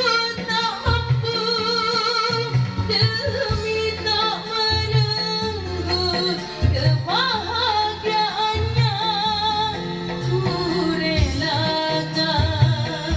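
A song with a backing track: a wavering, vibrato melody line, sung, over a steady bass beat.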